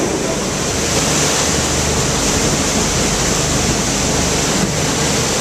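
Steady rush of wind and churning water from a motorboat under way at speed, with wind buffeting the microphone and a low engine drone beneath.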